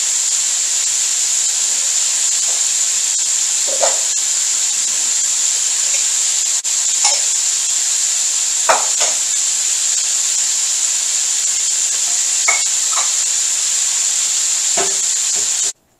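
Flour-and-cornstarch-coated chicken wings deep-frying in hot oil in a wok: a steady, loud sizzle with a few scattered pops. It cuts off suddenly near the end.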